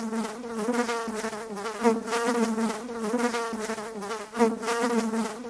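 A flying insect buzzing, its pitch wavering up and down as if it circles about. It swells louder twice, about two seconds in and again near four and a half seconds.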